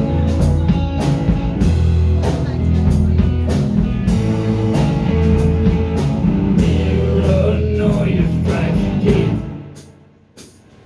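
Rock band playing an instrumental passage: guitar over bass and drums. About nine and a half seconds in, the music drops away to a brief near-silent pause.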